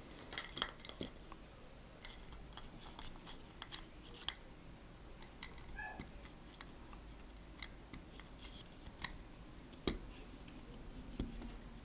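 Light, irregular clicks and taps of a small wooden stick mechanism being handled and worked by hand, its parts clacking against each other and the tabletop, with a couple of sharper knocks near the end.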